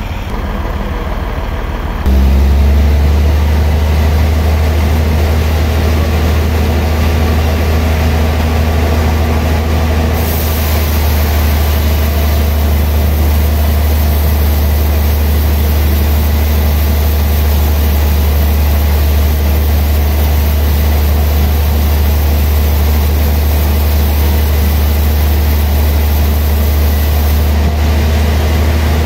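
Large log band sawmill running: a loud, steady low machine hum that steps up about two seconds in, with a high hiss added from about a third of the way in until near the end.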